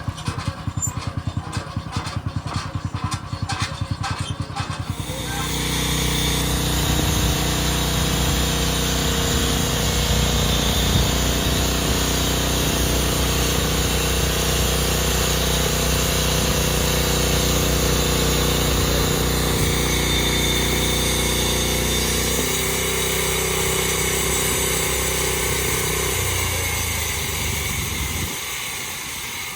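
An engine running at idle with clearly separate firing pulses, then speeding up about five seconds in to a steady running speed. It changes note once, then slows and fades near the end.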